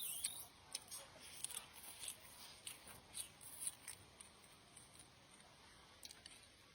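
Close-miked eating: chewing with a quick run of soft wet mouth smacks and clicks, busiest over the first four seconds, then a few more, quieter.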